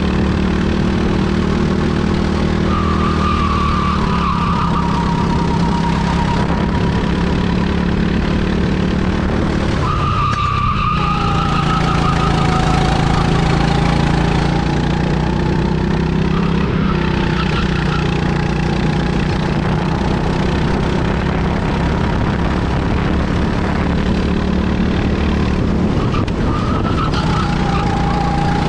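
Rental kart engine running under load, heard on board, its pitch rising and falling as the driver accelerates and lifts for corners, with a brief drop about ten seconds in.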